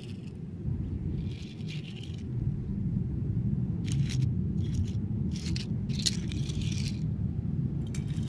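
Small diecast toy cars being set down and pushed by hand on rough asphalt: several short gritty scrapes of wheels and bodies on the pavement, over a steady low rumble.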